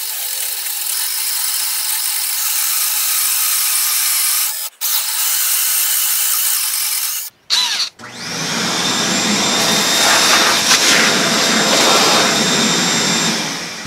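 DeWalt 20V cordless drill boring through a wooden table top with a 1.5-inch Forstner bit, sped up, for about seven seconds with a brief stop midway. After a short break, a vacuum hose runs steadily with a thin high whine, sucking up the wood chips, and stops just before the end.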